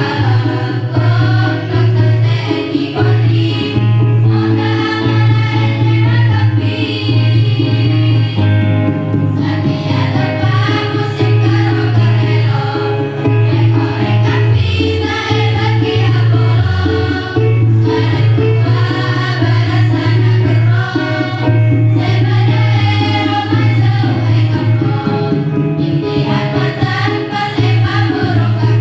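Choir singing a song in phrases of a few seconds each, over percussion and a steady low bass accompaniment.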